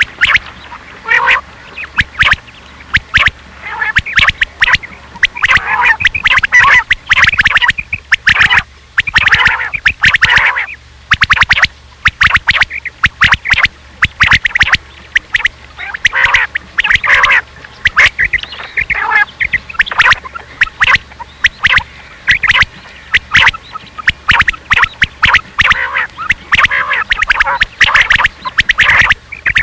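Quail calling over and over in quick clusters of short, sharp notes, with a few brief pauses: a batair call recording of the kind played to lure quail.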